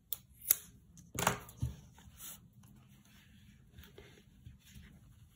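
Scissors snipping through cotton t-shirt yarn: a few sharp snips in the first half-second, then soft rustling as the yarn is handled.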